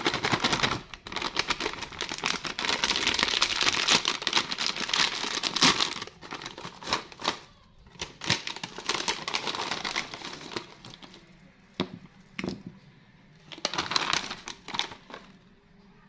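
Foil-lined plastic snack bag of corn puffs crinkling as it is torn open, handled and rummaged through. The crackling is dense for the first six seconds, then comes in shorter bursts.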